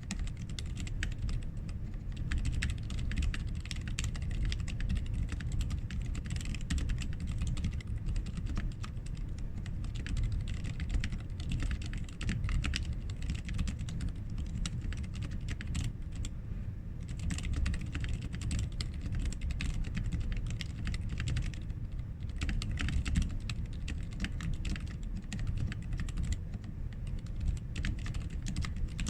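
Continuous typing on a Sentraq S-60X mechanical keyboard with lubed Zeal Healios silent linear switches and clipped, band-aid-modded stabilizers: a dense run of keystrokes, with short lulls about 16 and 22 seconds in.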